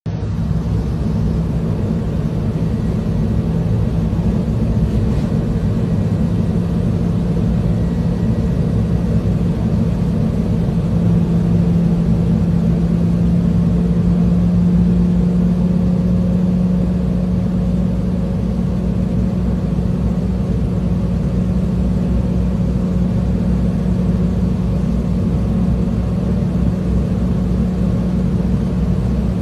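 A heavy engine runs steadily with a deep drone and a constant hum, the hum rising slightly in pitch about halfway through. It is most likely the diesel engine of a crane.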